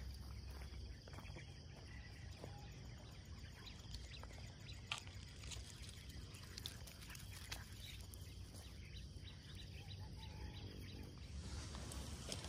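Quiet open-air ambience with scattered faint clicks and a couple of brief, faint chirps.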